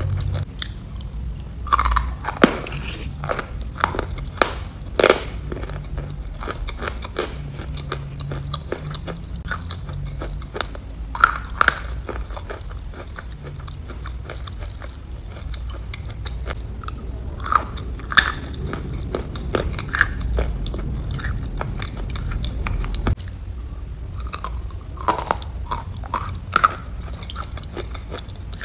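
Close-miked eating sounds: chewing, biting and wet mouth smacks on spoonfuls of soft food, with sharp clicks scattered throughout, the loudest several seconds apart.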